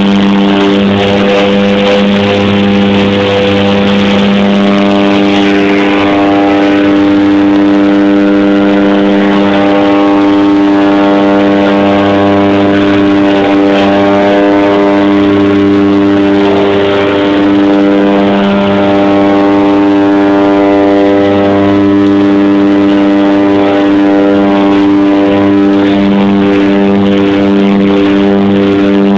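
Steady drone of a de Havilland DHC-6 Twin Otter's twin turboprop engines and propellers, heard loud from inside the cabin as a constant low hum with a strong fixed pitch.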